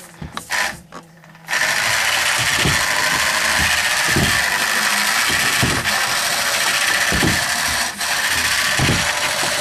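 A few clicks, then the robot's DC electric motor, switched on by radio control, starts about one and a half seconds in and runs steadily with a loud whir. Low knocks come every second or so while it runs.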